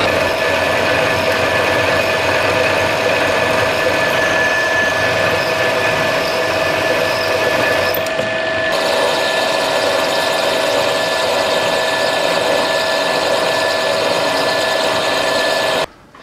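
Bench mill-drill running, its spindle driving a twist drill that bores through a metal block: a steady machine whine with a higher steady tone over the cutting noise, cutting off suddenly near the end.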